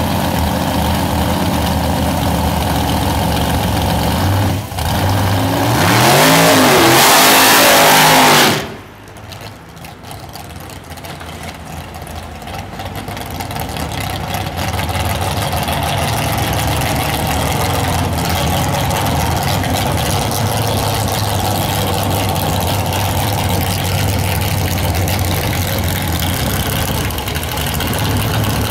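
A two-seat dragster's V8 engine idling, then revved hard for a couple of seconds, its pitch climbing and falling. After a sudden cut it idles steadily, quieter at first and growing louder until it holds at a steady level.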